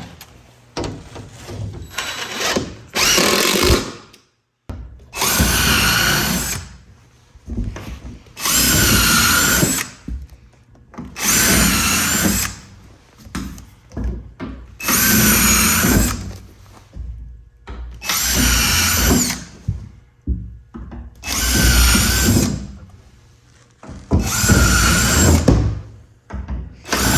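Cordless impact driver running screws into a wall, in about eight runs of one to two seconds each with short pauses between. It is heard through the wall, with the camera resting against it.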